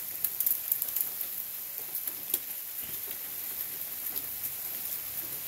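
Freezing rain falling on ice-coated trees and surfaces: a steady high hiss with scattered sharp ticks of ice, the ticks coming thickest in the first second.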